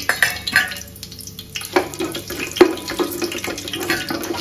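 Whole spices (bay leaves, cinnamon sticks and seeds) sizzling and crackling in hot oil and ghee in an aluminium pot, stirred with a wooden spatula. The sizzle grows fuller about two seconds in.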